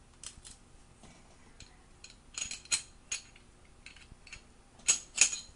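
Sharp metal-and-polymer clicks and clinks as a Walther P99's slide is handled and its recoil spring assembly taken out. A cluster of clicks comes about two and a half seconds in, and the two loudest come near the end.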